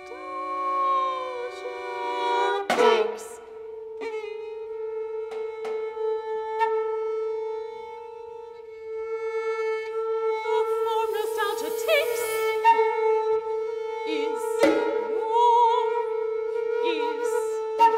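Contemporary chamber ensemble of soprano, flute, clarinet, violin and percussion playing held notes and quiet layered lines. A sudden loud accented attack comes about three seconds in, percussion strokes are scattered through the passage, and the soprano sings.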